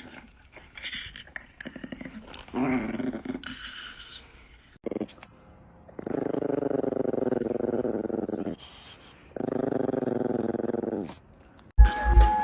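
Chihuahua growling: a few short growls, then two long drawn-out growls of about two seconds each in the second half.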